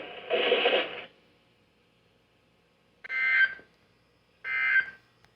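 A weather radio's speaker carries the last of a spoken test announcement, then after a short silence the EAS end-of-message data bursts: two short, shrill digital bursts about a second apart, each about half a second long.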